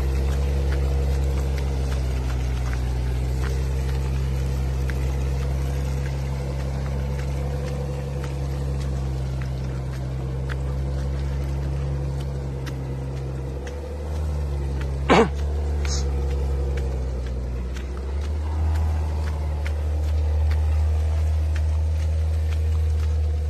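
A car engine running slowly under light load with a steady low drone, its pitch and level shifting a little partway through. About fifteen seconds in comes one short, sharp high squeak.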